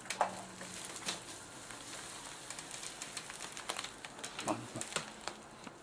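Faint handling noises: scattered light clicks and rustles as a plasma TV is lifted on its bubble-wrap padding, over a steady low hiss.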